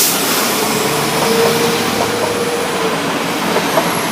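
Class 172 diesel multiple unit running past over the level crossing, with a steady hum for a couple of seconds and a few wheel clicks near the end.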